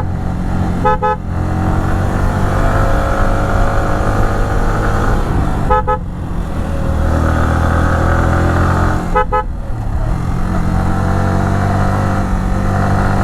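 Yamaha R15 V3's 155 cc single-cylinder engine pulling hard under acceleration, heard from the rider's seat. The engine note rises, then breaks briefly at gear changes about a second in, around six seconds and around nine seconds.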